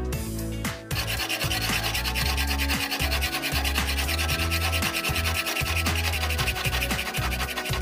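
A flat hand file rasps steadily over a steel hatchet head clamped in a vise, starting about a second in.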